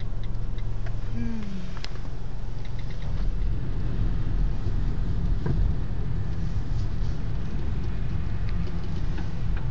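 Car engine and tyre noise on a wet road, heard from inside the cabin as the car drives on: a steady low hum with road hiss.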